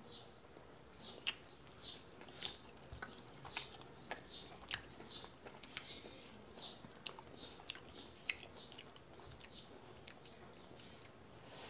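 A person chewing and eating steamed momos, with quiet, irregular wet mouth clicks and smacks.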